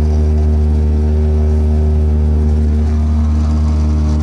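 Small boat's two-stroke outboard motor running steadily at constant throttle, with the boat underway.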